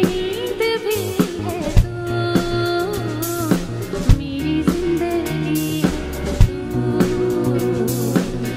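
Live Sufi song played by a band: a woman sings long held notes with wavering ornaments over a drum kit with cymbals and snare and sustained bass notes.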